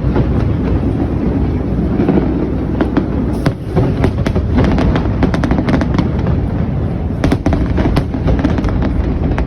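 Fireworks going off in rapid succession: many sharp cracks and pops over a continuous deep rumble of bursts.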